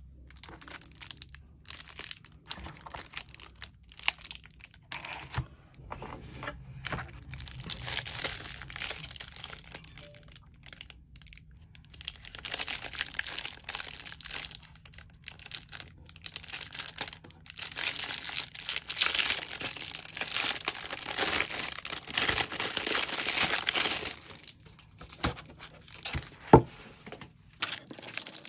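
Paper and plastic packaging crinkling and rustling in irregular bursts as items are handled and unwrapped, with a sharp tap about two seconds before the end.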